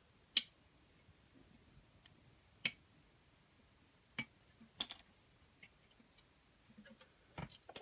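A handful of separate sharp clicks and light taps from handling a Zippo lighter and its refill items, the loudest about half a second in.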